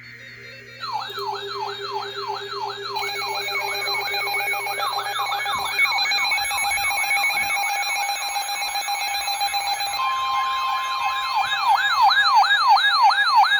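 Electronic siren-style alert tones sounding for a severe thunderstorm warning: a loud yelping siren whose pitch sweeps up about three times a second, with a faster warble layered above it. About ten seconds in a steady high alert tone joins.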